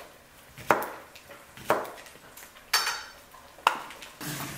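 Kitchen knife chopping cucumber on a cutting board: four sharp knocks about a second apart, the third with a brief ringing.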